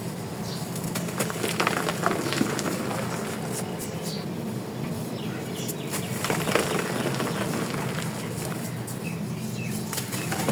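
Dry chalk crumbling and crunching, a continuous gritty rustle with scattered sharper crackles.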